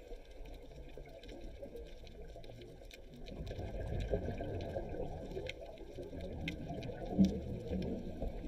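Underwater ambient sound as picked up by a camera below the surface: a low, even rush of water with scattered faint clicks. It grows louder about three seconds in.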